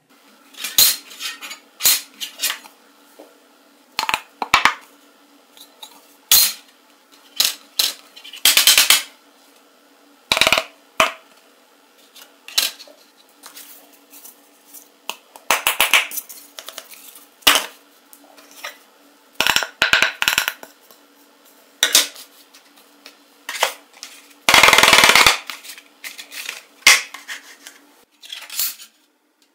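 Handmade phone mock-ups and flat sheets of iron, glass, cardboard and wood being handled on a table: an irregular string of sharp clacks and knocks as they are picked up and set down, with a few longer rubbing or sliding sounds, the loudest near the end lasting about a second.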